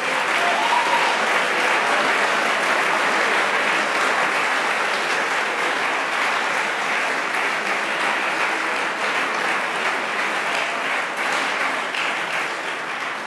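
Audience applauding, a steady dense clapping that tails off near the end.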